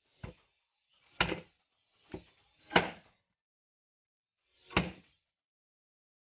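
A machete chopping through chicken meat and bone onto a wooden cutting board: five sharp chops at uneven intervals, the fourth the loudest.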